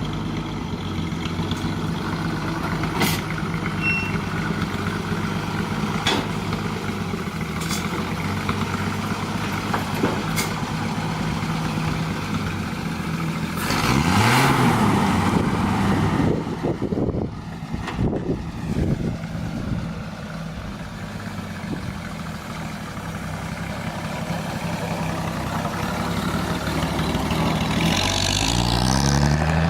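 A vehicle engine running steadily at idle, with a rise and fall in revs about halfway through and another rise near the end, and a few scattered clicks in the first third.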